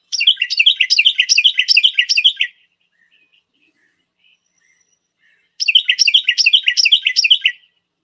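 Recorded Carolina wren song: two bouts of a rapidly repeated phrase, the 'tea-kettle, tea-kettle, tea-kettle' pattern, about three phrases a second. Each bout lasts about two and a half seconds, with a pause of about three seconds between them.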